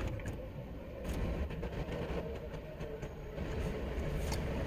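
Low, steady rumble of a truck's engine running, heard from inside the cab, with a few faint clicks.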